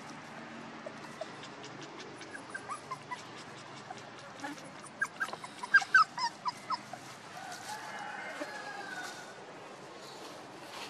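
Young puppies whimpering in short high-pitched squeaks, scattered at first, then a quick loud cluster of them about five to six and a half seconds in.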